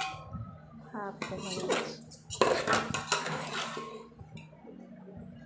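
Metal spoon scraping and clinking against a metal pot while mixing cooked rice, with a run of quick clattering strokes in the middle.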